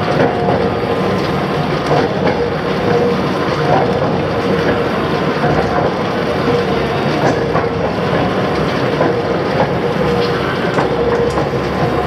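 КБ8340 mechanical crank press running idle on start-up: its belt-driven flywheel and large open drive gears turning with a loud, steady mechanical rumble and a constant hum, dotted with faint clicks.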